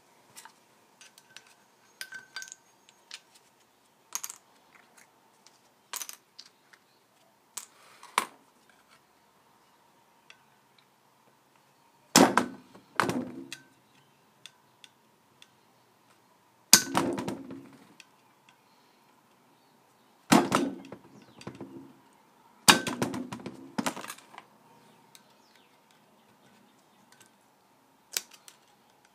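Light clicks and taps of a pick and small shims against a Kohler engine flywheel and a metal workbench. Then four louder bursts of knocking and scraping, each about a second long and a few seconds apart, as the shims are worked out from between the flywheel's magnets.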